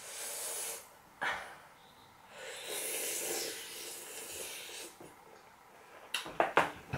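Breath noises from a person eating: a short hissing breath at the start and a longer one from about two and a half to five seconds, with a brief sound between them and a few quick mouth clicks near the end.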